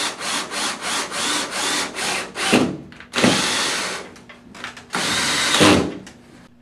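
Cordless drill driving a screw up into a wooden board overhead. It starts with a string of short quick trigger bursts, then runs steadily twice for about a second each. The motor winds down with a falling whine after the bursts and at the end.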